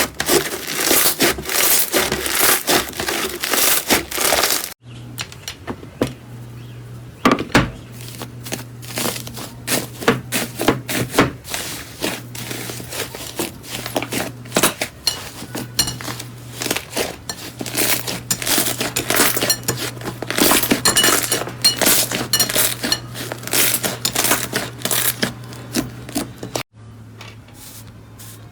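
Slime being squeezed and worked by hand, giving a dense run of sticky clicks, pops and crackles. About five seconds in the sound changes, and a low steady hum runs under the crackling until near the end.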